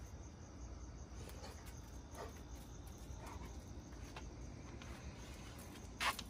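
Crickets chirping steadily in a high-pitched, pulsing trill. A few faint short noises come through it, and a louder sharp one comes near the end.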